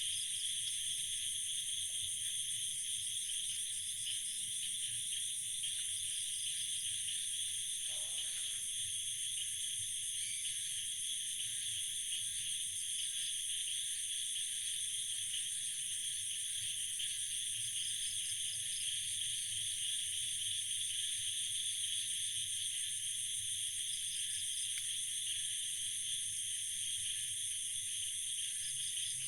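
Steady night chorus of insects such as crickets, a continuous high-pitched trilling in several layers, with a faint low hum beneath.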